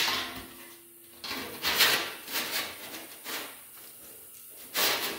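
Thin sheet steel being rolled and slid by hand over a steel pipe anvil, scraping and rubbing against the pipe in a series of swishes, the loudest about two seconds in and near the end.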